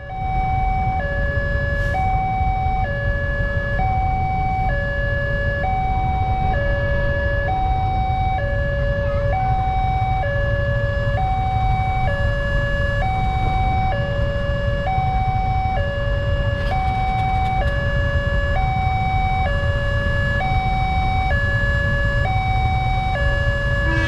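Railway level-crossing warning alarm sounding a two-tone signal, a high and a lower tone alternating about once a second, repeating steadily. It signals that a train is approaching and the crossing barriers are down.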